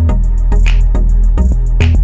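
Background music with a steady beat: regular drum hits over sustained bass.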